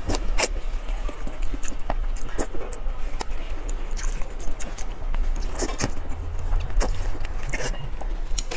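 Close-miked eating: biting and chewing with wet smacks and sharp clicks at irregular intervals.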